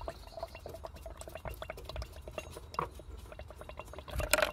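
Faint, rapid irregular clicking and light squeaking as an Audi TT's power steering pump is turned slowly by hand with the drive belt off, drawing fluid from the reservoir to bleed air from the system. A louder burst of clicks comes near the end.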